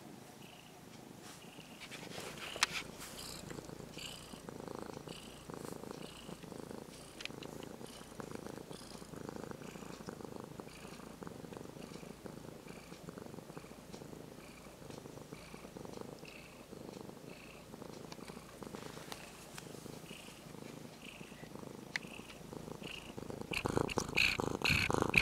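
Orange-and-white cat purring up close, a steady low rhythmic rumble. Near the end it turns much louder with rustling as the cat's fur brushes against the microphone.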